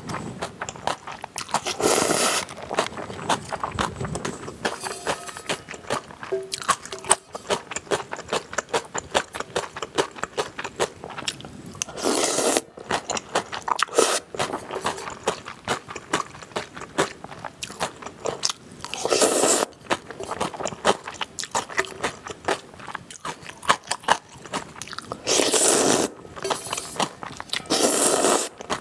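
Close-miked eating of spicy cold noodles (naengmyeon): several long, noisy slurps of noodles, with wet chewing clicks between them.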